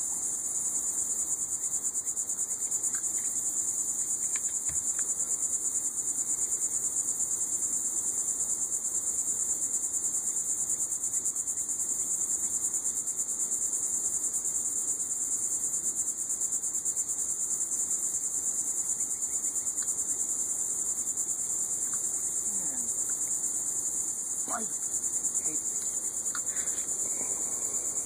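Steady, high-pitched chorus of insects, an even rapid buzz that never stops.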